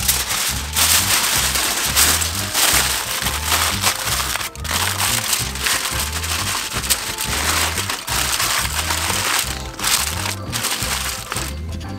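Aluminium foil crinkling and crumpling as it is folded and pressed around a large piece of smoked beef, starting about a second in, over background music with a steady bass beat.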